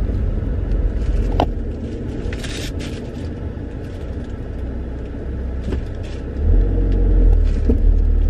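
Inside the cabin of a moving Audi RS3 with its turbocharged five-cylinder engine: a steady low rumble from the engine and drivetrain, growing louder about six and a half seconds in.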